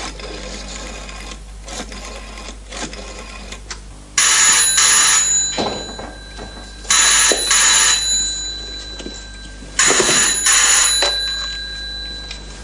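Black rotary desk telephone's bell ringing three times. The rings start about four seconds in, each about a second long with short pauses between.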